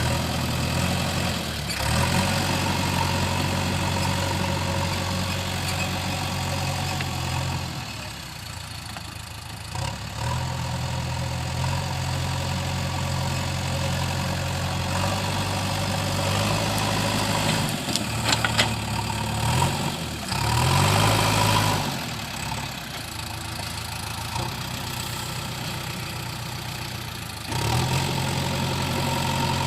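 Diesel engine of a JCB 3DX backhoe loader running steadily, its note shifting up and down several times as the operator works the machine, with a brief rev about two-thirds of the way through. A few sharp clanks just before the rev.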